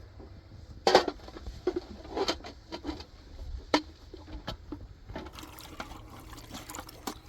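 A handful of sharp knocks and clatters, hard objects striking, spaced half a second to a second apart, the loudest about a second in; from about five seconds in, a steadier rustling, splashy noise takes over.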